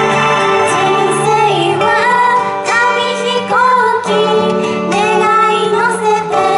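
A girls' idol group singing a J-pop song in unison into handheld microphones over instrumental backing music; the voices come in after about a second and a half of instrumental.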